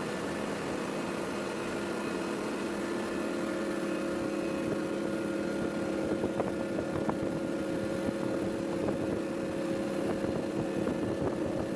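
A steady mechanical hum with a few faint light clicks.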